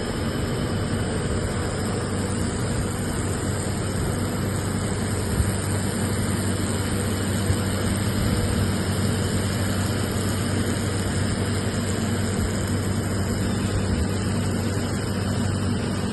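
Steady machine hum with an even hiss from robotic laser welding equipment running. Two short clicks come mid-way.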